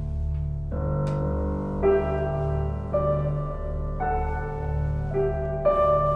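Background piano music: soft chords changing about once a second over a steady low drone.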